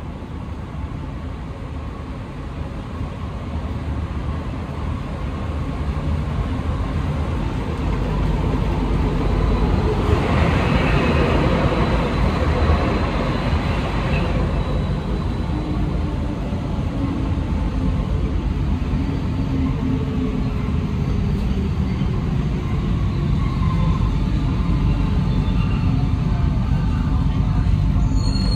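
Alstom NS-93 rubber-tyred metro train running, heard from inside the car by the doors: a low rumble that grows steadily louder, with a rush of noise about ten seconds in and a faint whine shifting in pitch later on.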